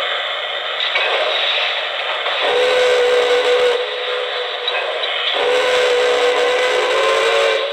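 Sound-system whistle of a K-Line O-gauge New York Central Hudson model locomotive with Lionel RailSounds: two deep whistle blasts, a short one and then a longer one, over a steady hiss.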